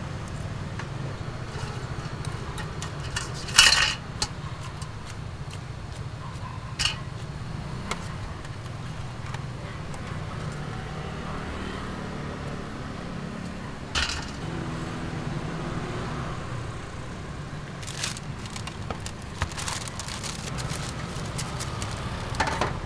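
Metal tongs clinking against a stainless-steel scoop as braised snacks are loaded and shuffled in it: a handful of sharp metallic clinks spread out, the loudest a few seconds in, over a steady low hum.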